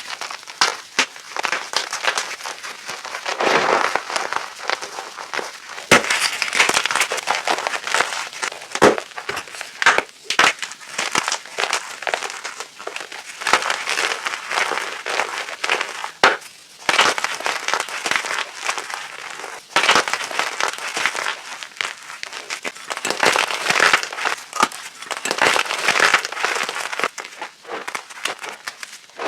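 Blocks of gym chalk being crushed: a continuous run of crisp crunches and crumbling crackles.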